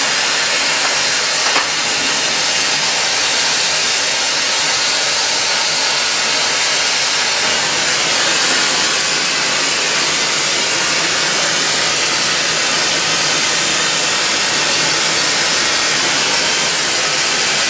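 Hand-held glassworking torch flame hissing steadily as it heats glass turning on a glass lathe, with a brief click about one and a half seconds in.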